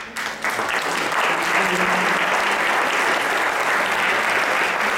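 Audience applauding. The clapping builds up within the first half second, then holds steady.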